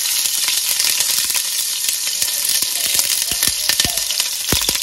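Sliced onion sizzling steadily in hot oil in a nonstick pot, just after being tipped in. A few light knocks of a wooden spatula against the pot come in the second half.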